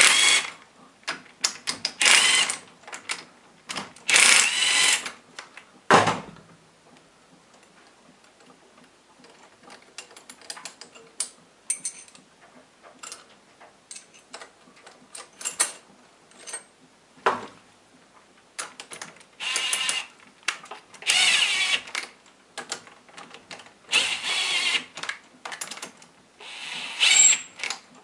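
Socket driver tightening the cylinder-head stud nuts on a 156FMI CG125-clone engine, in short bursts of rapid clicking with pauses between. A single sharp knock about six seconds in.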